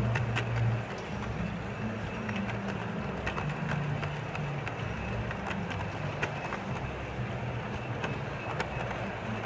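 O scale model passenger cars rolling past on two-rail track: a steady low rumble of wheels on rail with irregular clicks as the trucks cross rail joints.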